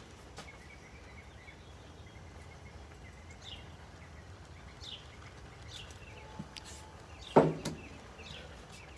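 Steady low outdoor background with a few faint, short bird chirps, and one sharp knock about seven and a half seconds in.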